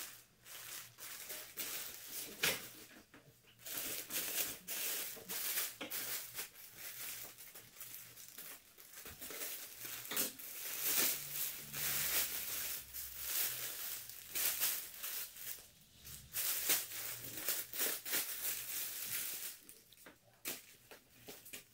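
Plastic packaging crinkling and rustling in irregular bursts as clothes in clear polybags and a plastic mailer bag are handled and opened.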